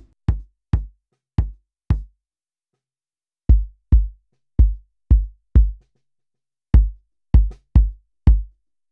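Bass drum played on its own in three short groups of single strokes: four hits, then five, then four, with silent gaps between the groups. Each hit is a short, deep thud that dies away quickly. This is the tight, dead, subby kick of a ported drum stuffed with a blanket, heard first through a Warm Audio 47jr microphone alone and then with a Shure SM7B added.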